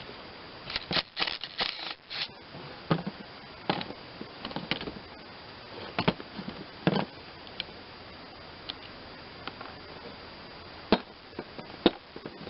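Hand tools and metal parts clicking and clinking while the idler pulley is taken off a lawn tractor's mower deck: a quick run of clicks about a second in, then scattered single knocks.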